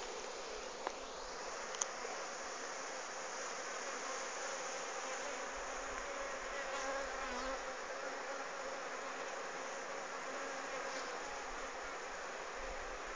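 A honeybee swarm hums steadily at a hive entrance as it moves into the hive. There are two short clicks, about one and two seconds in.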